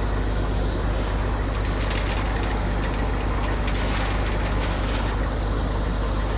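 An engine running steadily: a constant low hum under an even hiss, with no change in speed.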